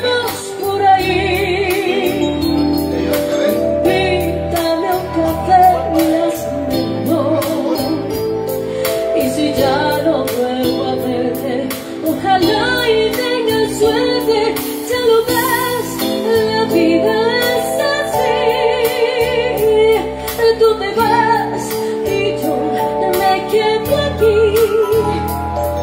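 A woman singing a slow ballad into a microphone, with an electronic keyboard accompaniment and a steady bass line.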